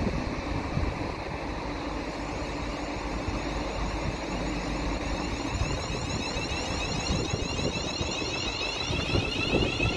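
Greater Anglia electric multiple unit moving slowly through the platform with a steady rumble of wheels on rail. From about halfway, a high whine of repeated rising tones comes in and grows stronger.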